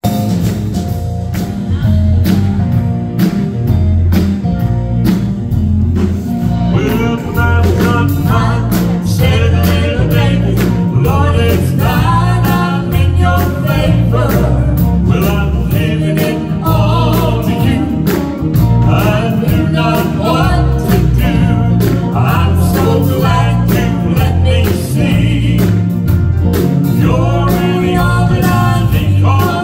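Live gospel band of piano and guitars playing over amplified speakers with a steady beat. Voices join in singing about seven seconds in.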